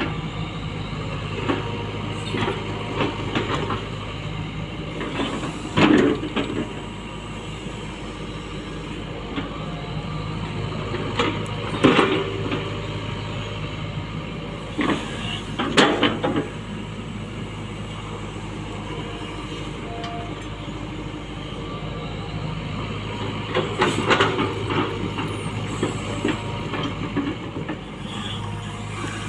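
Tata Hitachi Zaxis hydraulic excavator's diesel engine running steadily while it digs and spreads soil. Louder clanks and scraping from the bucket and boom come several seconds apart, the strongest about 6, 12, 16 and 24 seconds in.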